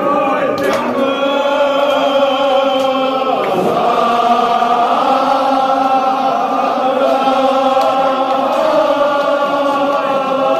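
Group of men chanting a Kashmiri marsiya, a Shia elegy, together, with long held notes.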